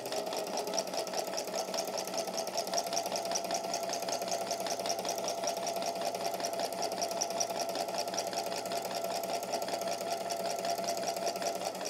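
Electric home sewing machine running at a steady speed, stitching a straight seam through fabric: a steady motor whine with a fast, even ticking of the needle strokes.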